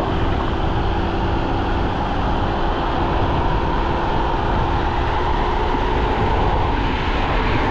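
Teverun Fighter Supreme Ultra electric scooter running at speed: a steady motor whine over wind rumble on the microphone.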